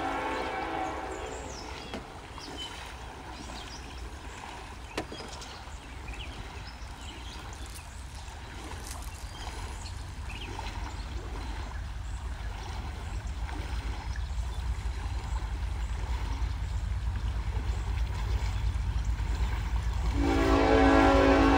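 Horn of a Norfolk Southern freight train led by an EMD SD70ACe, sounding for a grade crossing: a chord that dies away within the first second, then the low rumble of the approaching diesel locomotives growing steadily louder. The horn sounds again, loudly, about 20 seconds in as the lead locomotive comes into view.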